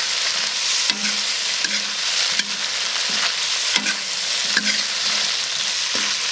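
Shrimp and chicken feet stir-frying in hot oil in a wok: a steady sizzle, with a metal spatula scraping and knocking against the wok in regular strokes a little more than once a second.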